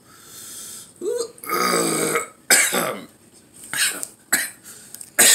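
A man burps loudly about a second and a half in, with heavy breaths around it, as he eats extra-spicy chicken ramen.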